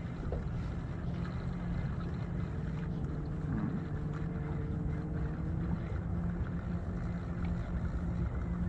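Small 30 hp outboard motor running steadily at low revs, a constant low hum, with wind buffeting the microphone.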